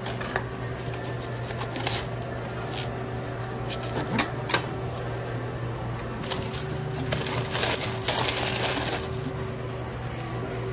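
Paper sandwich wrapper and thin plastic gloves crinkling and rustling as a sub is wrapped by hand: scattered crackles, then a longer stretch of rustling past the middle, over a steady low hum.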